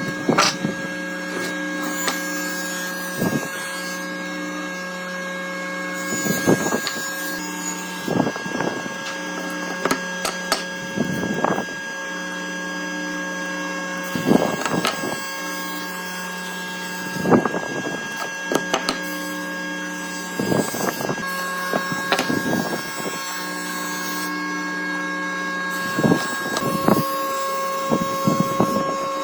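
Wood being worked by hand: short scraping or knocking strokes on wood every two to three seconds over a steady hum.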